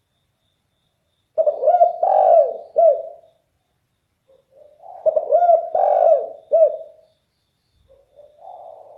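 Spotted dove (derkuku) cooing in a deep, very loud voice: two phrases of several arched coos about three seconds apart, then a quieter phrase starting near the end.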